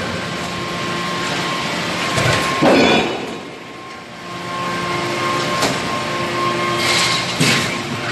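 Forging machinery working on flange blanks: a steady machine hum with a loud metallic clash about two and a half seconds in, and several more knocks and clanks near the end.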